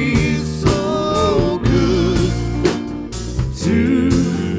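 A congregational worship song with band accompaniment: voices singing over guitar, keyboard-like held chords and a drum kit keeping a steady beat.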